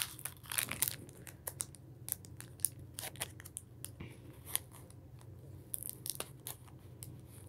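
Foil Pokémon booster pack crinkling and tearing as it is opened by hand, an irregular scatter of small crackles and rustles.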